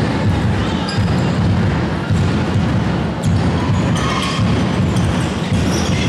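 A handball bouncing on a sports-hall floor during play, with thuds about every second over the echoing din of the hall.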